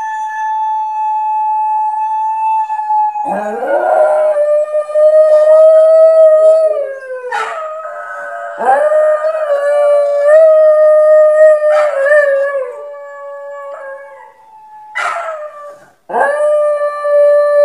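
Australian Shepherd howling: a string of long, drawn-out howls with short breaks between them. The first is held on one pitch, and later ones slide lower as they start and end.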